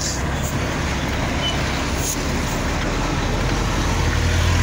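Volvo NH380 truck's diesel engine droning under its engine brake, heard from inside the cab with road noise. The drone grows louder near the end.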